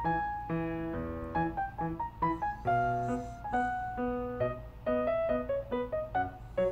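Background piano music: a melody of single notes over chords, with each note struck and fading.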